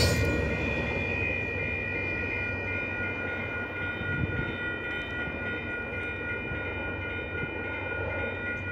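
Freight stack train's rumble fading as the train pulls away, under a steady high-pitched tone that holds throughout.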